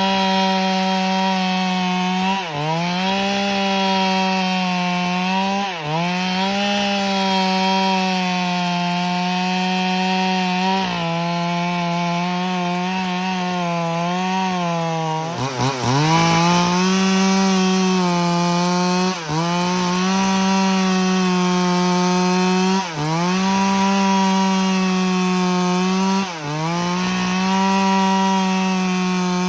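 Stihl MS 382 two-stroke chainsaw with a 25-inch bar cutting wood at full throttle. Its pitch sags and recovers briefly about every three to four seconds.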